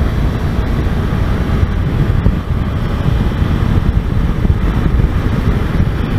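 Motorcycle riding at a steady cruising speed: a low, even engine and road rumble under wind rushing over the microphone.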